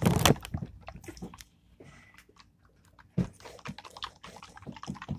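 Hands handling a small plastic jar of glitter water: a loud burst of shaking and rustling at the start, then scattered clicks and light knocks, with a sharper knock about three seconds in.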